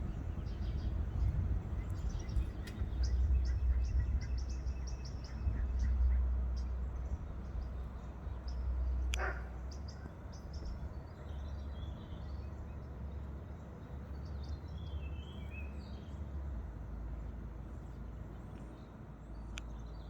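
Steady low outdoor rumble, like wind on the microphone, with small birds chirping now and then in short high bursts.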